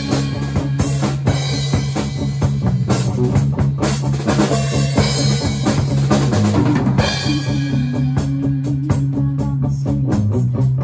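Rock band playing live: distorted electric guitar, bass guitar and drum kit, a busy beat over held low bass notes.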